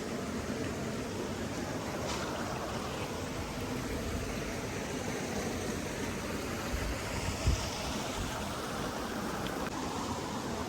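Running water of a stream, a steady rushing, with one brief low thump about seven and a half seconds in.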